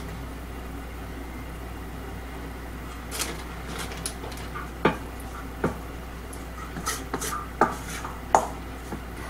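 A metal slotted spoon clinking against a stainless steel mixing bowl, a string of sharp, irregular clinks starting about three seconds in, as pork cartilage pieces are tossed in flour and potato starch. A steady low hum lies underneath.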